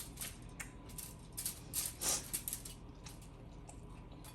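Close-up chewing of a juicy sandwich: irregular crackly, wet clicks and crunches, thickest about two seconds in.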